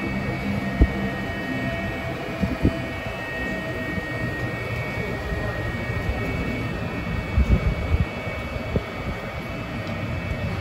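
Steady mechanical hum and rumble of an airport terminal walkway with moving walkways, with a few thumps scattered through it.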